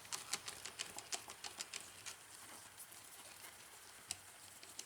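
Light clicks and taps of a T20 screwdriver backing screws out of a plastic drill housing. The clicks come quickly for about two seconds, then thin out to a few scattered ones, with one slightly louder tap about four seconds in.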